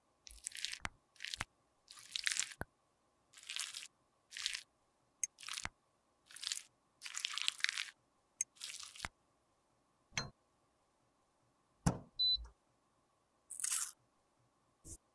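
A thin metal pick scraping leftover lipstick out of the cavities of a metal lipstick mold: a string of short scrapes with sharp clicks of metal on metal. Later there are a few hard knocks as lipstick pieces drop into a glass beaker, and near the end a brief tearing rustle as an alcohol pad packet is opened.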